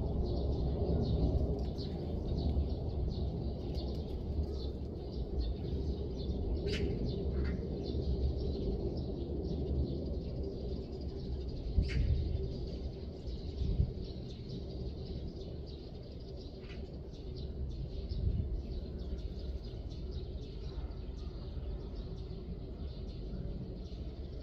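Small birds chirping repeatedly over a steady low background rumble, with a couple of louder calls about 7 and 12 seconds in.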